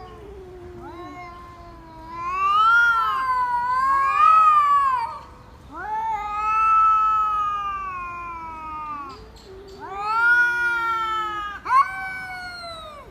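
A pet animal yowling in a series of long, wavering calls, each drawn out over one to three seconds and rising and falling in pitch.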